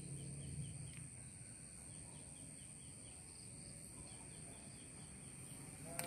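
Faint rural outdoor ambience: a steady high-pitched insect drone with a small bird chirping softly over and over, about two or three chirps a second, stopping near the end.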